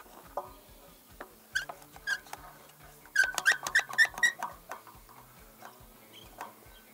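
Dog barking in sharp, high-pitched yaps: a few single barks, then a quick run of about six.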